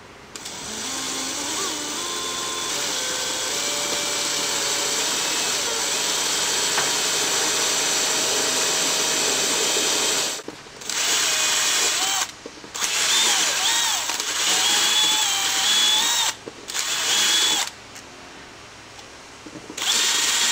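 Cordless drill boring into a sailboat's fiberglass hull, only through the outer skin and not right through. It runs steadily for about ten seconds, then stops and starts again in several shorter bursts.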